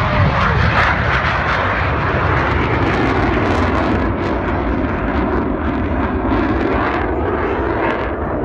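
Loud, steady jet-engine noise from a Blue Angels F/A-18 Hornet climbing steeply just after takeoff.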